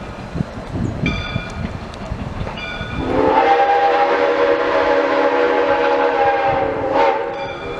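Steam locomotive Soo Line 1003 sounding one long whistle blast of several notes at once, lasting about four seconds from about three seconds in. Around it, the locomotive's bell rings with a slow strike about every second and a half over the rumble of the running engine.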